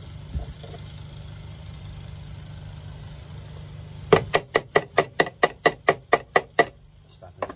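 Quick series of about a dozen sharp metallic strikes on the van's steel door pillar, around five a second, as the raised metal around a freshly drilled earth-point hole is worked flat. Before them, a low steady hum.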